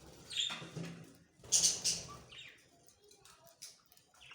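Budgerigars chirping: a few sharp, high calls, the loudest about a second and a half in.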